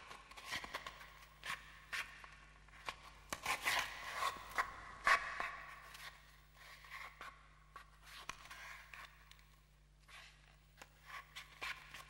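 Twine being handled and knotted close up: a run of small, irregular rustles, scrapes and clicks.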